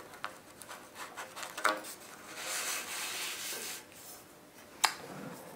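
A paper template being slid and turned on a steel tube, the paper rubbing against the metal for a couple of seconds in the middle. A single sharp click comes near the end.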